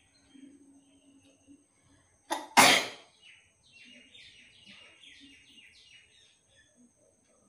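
A person sneezing once, hard: a short sharp catch, then a louder explosive burst. Just after it, birds give a quick run of short descending chirps.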